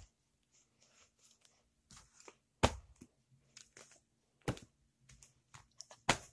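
Paperback books being handled and shifted about: covers sliding and rustling, with a few sharp knocks spread irregularly through.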